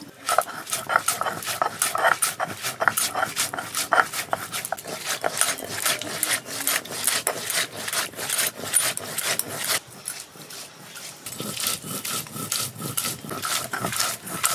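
Stone muller rolled back and forth on a flat stone grinding slab (sil-batta), crushing dried red chillies, bay leaves and cumin seeds. It makes a rhythmic gritty rubbing and knocking of stone on stone, about four strokes a second, with a short break partway through.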